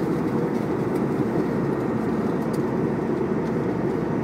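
Steady, low cabin noise of an airliner in cruise flight, the even rumble of engines and rushing air heard inside the cabin.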